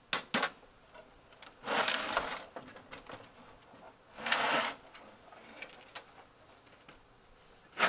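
Two quick clicks, then two short bursts of rattling and scraping about two and four seconds in, from plastic and metal parts of a CRT television being taken apart by hand.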